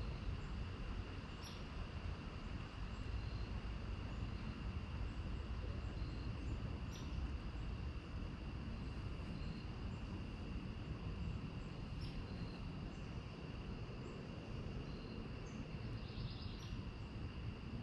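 Woodland ambience: a constant high insect trill over a steady low rumble, with a few short high chirps scattered through it.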